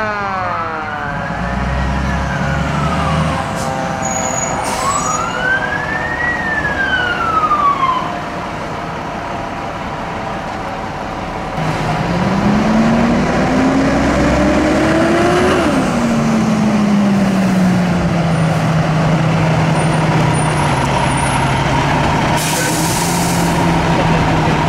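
Fire engine sirens: an electronic wail rises and falls twice in the first several seconds. After a quieter stretch, a lower siren winds up for about four seconds and then slowly winds down, over the rumble of the truck.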